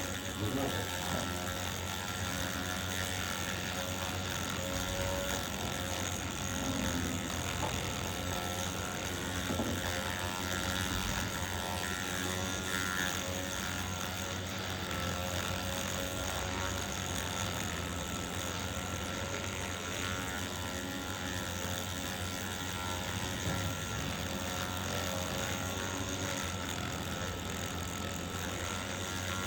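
A small electric motor humming with a steady buzz.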